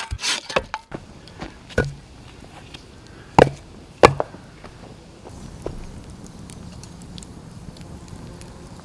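Hatchet chopping into a log: several quick sharp strikes in the first second, then a few single wooden knocks, the two loudest about three and four seconds in, as cut logs are set down on a pile. After that only a quiet steady background.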